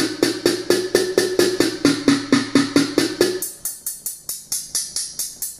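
Drum samples in Native Instruments Maschine, triggered from iPad touch pads in a fast, evenly spaced run of about five hits a second. For roughly the first three seconds each hit has a low pitched tone; after that the hits turn thin and high, like a tambourine.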